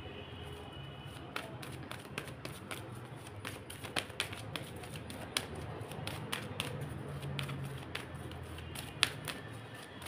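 A deck of oracle cards being shuffled by hand: a steady run of soft, irregular card clicks and flicks.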